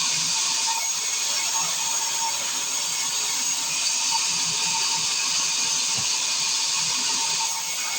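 Sawmill circular saw running steadily, a continuous high-pitched hiss with a faint whine under it.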